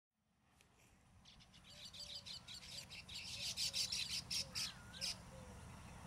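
Baya weavers chattering: a rapid run of high, dry chips that fades in at the start, thickens, and breaks off about five seconds in. Softer short whistled notes sound lower underneath.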